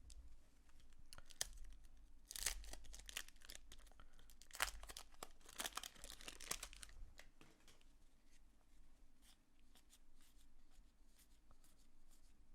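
A baseball card pack wrapper being torn open and crinkled in several short bursts in the first half, followed by faint scattered clicks and rustles.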